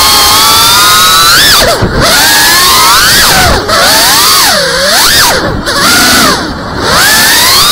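FPV quadcopter's brushless motors whining over a steady rush of propeller and wind noise. The pitch rises and falls with the throttle, and about five times it dips sharply and briefly, as when the throttle is chopped during banking manoeuvres.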